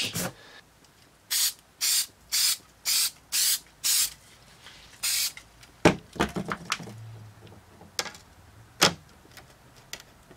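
An aerosol spray-adhesive can sprays in six short hisses, about two a second, then one longer hiss. A few sharp knocks follow as a glass plate with sandpaper glued to it is set down and pressed onto a metal bench top.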